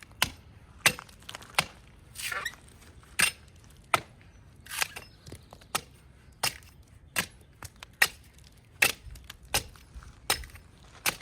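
An axe chopping into a tree trunk, with sharp strikes at a steady pace of about three every two seconds and a couple of short scraping sounds among them, as a ring is cut through the bark to girdle the tree.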